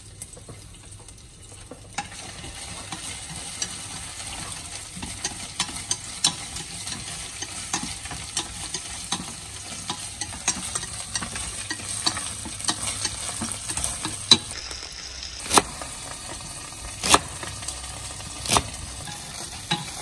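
Small whole crabs sizzling in hot oil in a pan while being stirred with chopsticks, with frequent sharp clicks and a few louder knocks in the last few seconds.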